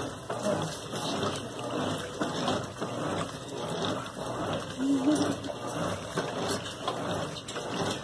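GE Super Capacity top-loading washing machine in its wash agitation: the agitator churns the load back and forth through the soapy water, a rhythmic sloshing and swishing over the running motor and transmission.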